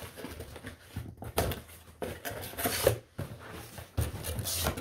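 Cardboard shipping box opened and unpacked by hand: flaps folding back and packing paper rustling, with irregular knocks and scrapes.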